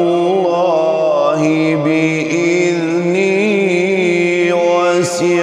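A man reciting the Quran solo in melodic tajweed style: long held, ornamented vowels with the pitch winding slowly up and down, and a short break for breath near the end.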